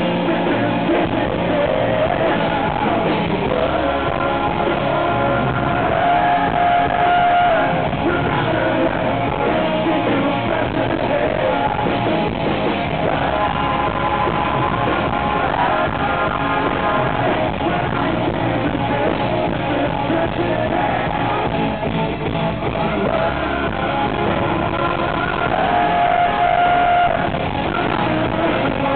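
Live rock band playing loud and steady: male lead vocals sung over electric guitar, with a couple of long held vocal notes.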